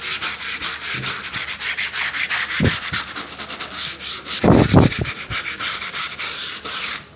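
A bristle paintbrush scrubbing back and forth around a laptop screen's bezel, several quick scratchy strokes a second. There are low thumps partway through, the loudest about four and a half seconds in.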